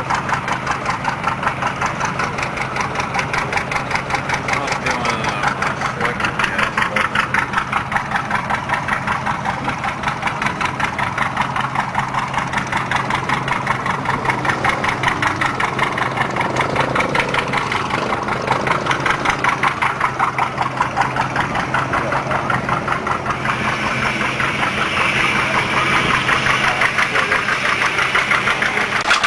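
Antique tractor engine idling, with an even, steady beat of firing pulses.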